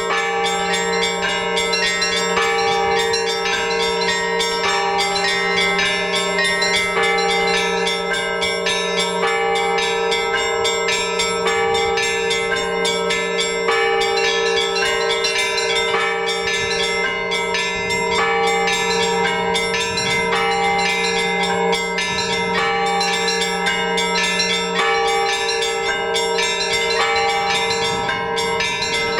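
Orthodox church bells rung together in a continuous peal (zvon): quick, repeated strikes on the smaller bells over the long, sustained hum of the larger bells.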